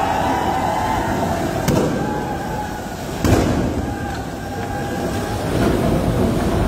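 Tunnel boring machine grinding through the last rock of the shaft wall at breakthrough: a steady heavy rumble with a wavering mechanical whine. Two sharp cracks of firecrackers go off, the louder about a third of the way in.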